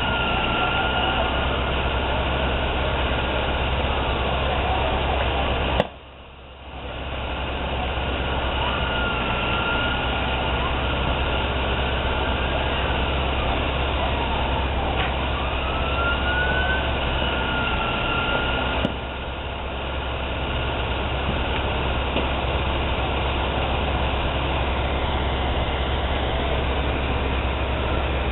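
Fire engines running with a steady low drone, while sirens wail faintly, rising and falling. The sound cuts out briefly after a click about six seconds in, and dips again after a click around nineteen seconds.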